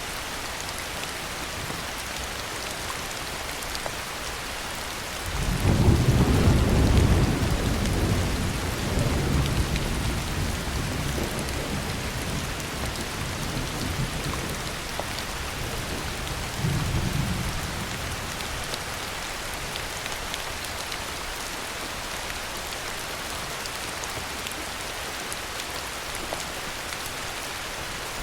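Steady heavy rain with a roll of thunder. The thunder breaks in suddenly about five seconds in, rumbles loudest for a couple of seconds, then dies away slowly, with a second, weaker rumble a few seconds later, over an even hiss of rain.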